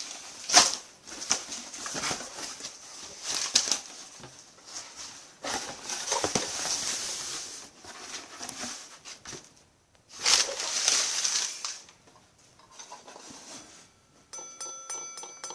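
A package being cut and torn open by hand: rustling, crinkling and tearing in uneven bursts with short pauses. A steady pitched tone with several overtones starts near the end.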